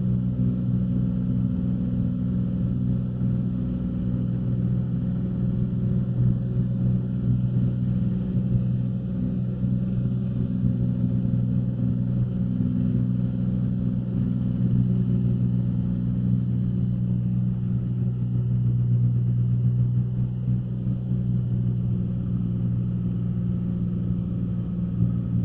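Cessna 182's piston engine and propeller droning steadily in flight, heard inside the cockpit.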